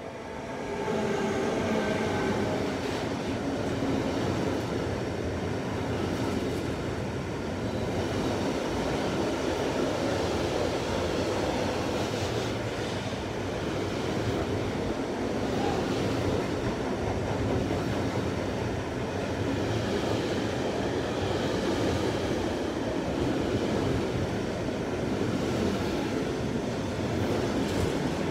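Class 186 electric locomotive passing close by at speed with its drive humming, followed by container wagons rolling past in a steady rumble of wheels on rail.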